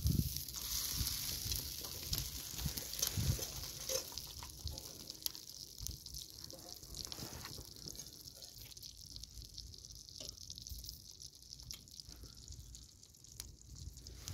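Food sizzling as it cooks, with scattered light clicks and crackles; the sizzle is strongest in the first few seconds and then fades.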